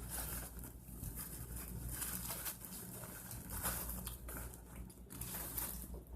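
A person chewing food, soft irregular crunches and mouth sounds, over a steady low hum.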